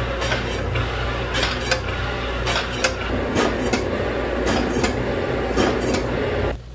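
Dishes and metal utensils clattering, a string of sharp clinks and knocks that cuts off suddenly near the end.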